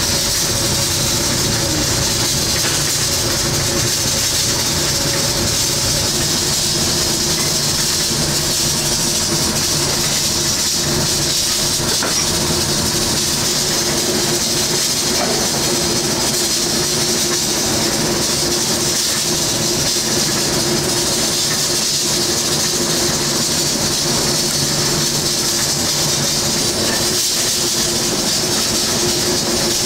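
Loud, steady kitchen background noise: an even hiss with a low hum under it, as from an exhaust fan or burners running. A few soft knife strokes on a wooden cutting board can be heard faintly.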